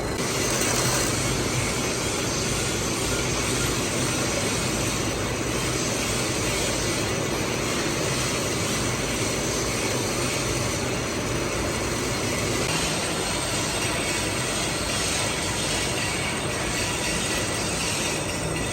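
Metal lathe running steadily while turning a bronze bush, a continuous dense machining noise with a faint steady whine.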